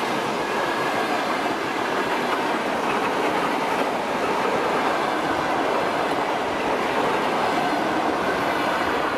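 ED4M DC electric multiple unit passing close by: the steady rolling noise of its carriages' wheels on the rails, holding an even level throughout.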